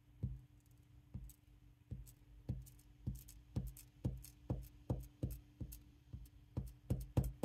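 About fifteen soft, dull taps on a craft desk, coming about one a second at first and quickening to about two a second.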